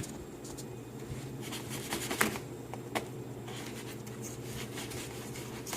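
Cardboard radiator box being handled and pried open, with scattered rustling, scraping and sharp clicks over a steady low hum.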